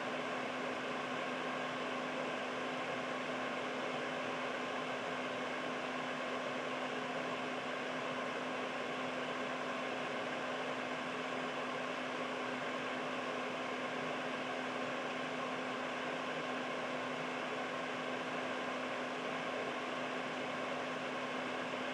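Air purifier fan running steadily: an even rush of air with a low, unwavering hum beneath it.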